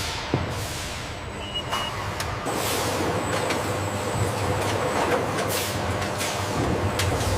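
Steady industrial machinery noise: a dense hiss over a low hum, with scattered sharp clicks and knocks and a brief high beep about one and a half seconds in.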